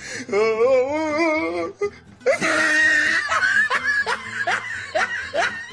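A wavering, warbling pitched sound for about two seconds, then loud laughter in quick 'ha-ha' beats, about three a second.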